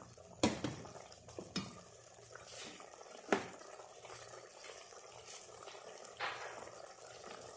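Chicken simmering in broth in a stainless steel pot, a faint steady bubbling, with a few sharp knocks of a wooden spoon against the pot, the loudest about three seconds in.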